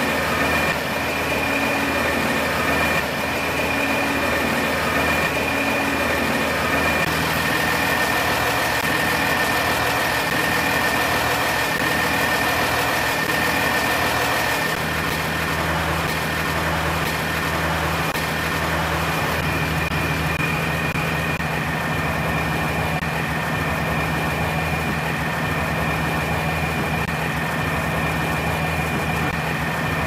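Ready-mix concrete truck's diesel engine idling steadily at close range, with a thin high whine held over it. About halfway through, a deeper steady hum joins in.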